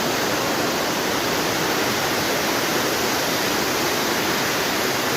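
Waterfall rushing: a steady, even wash of falling-water noise that does not change.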